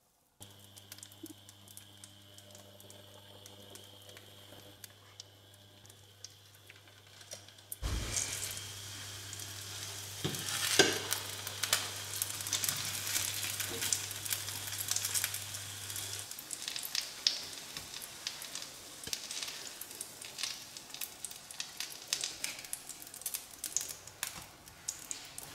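Butter sizzling in a hot nonstick frying pan, with a steady low hum. About eight seconds in, the sizzling jumps much louder and crackles densely as the milk-and-egg-soaked bread slices for torrijas go into the butter, and keeps crackling as they fry; the hum stops about two-thirds of the way through.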